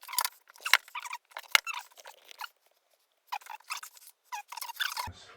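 Flat-pack kitchen wall cabinet parts being handled and fitted together: irregular clicks, light knocks and short scrapes of board and fittings, with a brief pause about halfway through.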